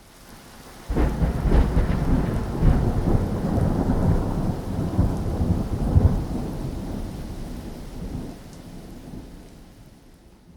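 Rainstorm: steady rain with a sudden thunderclap about a second in, rumbling for several seconds and slowly dying away.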